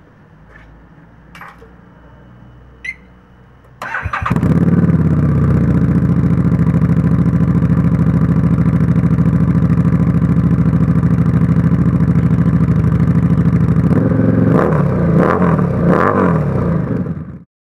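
Harley-Davidson XG 750 V-twin engine breathing through a BSL Bomb Muffler: after a few faint clicks it is started about four seconds in, idles with a steady pulsing beat, is revved briefly three times near the end, and then stops abruptly.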